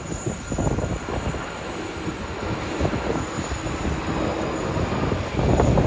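Qantas Airbus A330-300 jet engines on final approach just before touchdown: a steady rumble and hiss that grows louder near the end.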